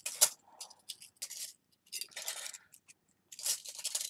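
Thin stamped iron filigree pieces clinking and scraping against each other as they are sorted by hand, in irregular bursts with a short pause about three seconds in.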